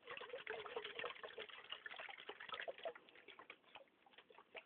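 Peach nectar sloshing inside an unopened can as it is shaken, a quick, uneven run of liquid splashes.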